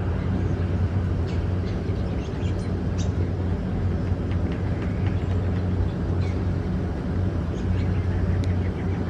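A steady low mechanical hum, from a running engine or machine, with a few faint, scattered short high sounds over it.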